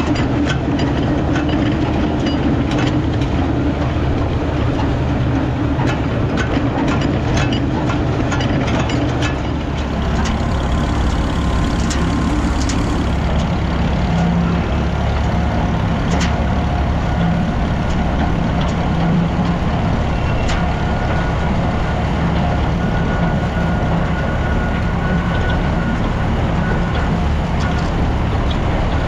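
A Farmall tractor's four-cylinder engine running steadily under load as it pulls a loaded manure spreader wagon. For the first ten seconds or so, rapid rattling and clanking from the wagon's unloading chain and gearing sits over the engine; after that the engine is heard alone.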